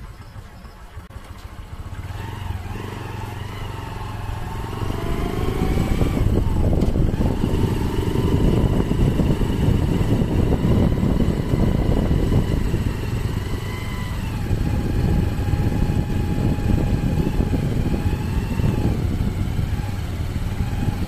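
Motorcycle engine pulling away and running at road speed, rising in pitch and growing louder over the first several seconds, with a steady rush of road and wind noise.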